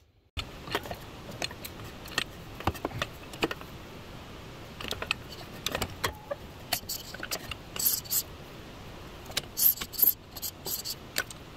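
Metal clinks, knocks and rattles of an air bag's steel brackets and U-bolts being worked up into place over a truck's rear axle, irregular and scattered throughout, over a steady low background noise.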